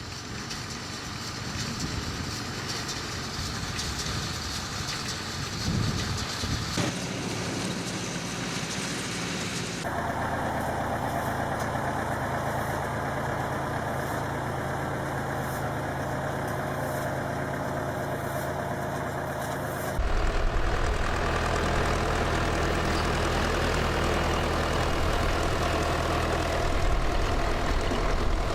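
Engines of farm machinery running steadily, the sound changing abruptly about 7, 10 and 20 seconds in as one machine gives way to the next.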